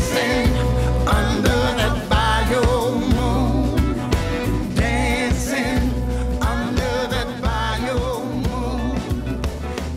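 Background music: a song with a singing voice over bass and drums.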